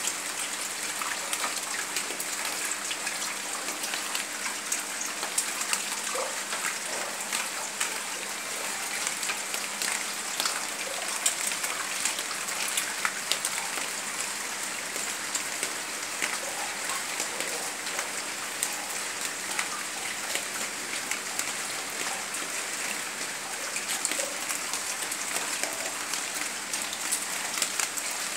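Heavy rain falling steadily: an even hiss dotted with many sharp ticks of individual drops striking surfaces.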